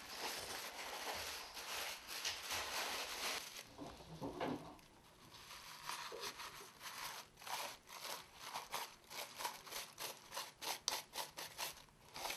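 Paper crinkling and rustling as a paper packet of bursting charge is folded and pressed into a firework shell half lined with hard stars, then many quick crisp rustles and ticks as fingers work the paper lining among the star pellets.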